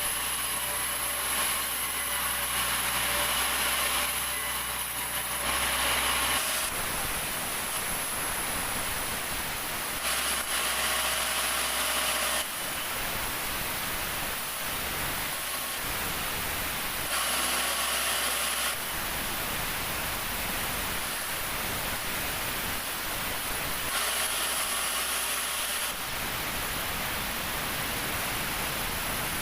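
Sawmill saw cutting through jackfruit wood, its machinery running steadily throughout. The sound shifts every few seconds, alternating between stretches with a steady low engine hum and stretches of plain cutting noise.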